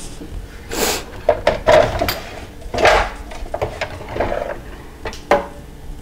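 The plastic drip tray of a Jura Impressa F50 Classic espresso machine being slid out and handled, with a series of irregular clunks and rattles. The tray is full of descaling solution and is being emptied during the descaling cycle.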